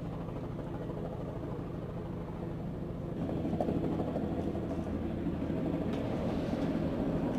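Steady engine drone with a low hum, growing louder about three seconds in.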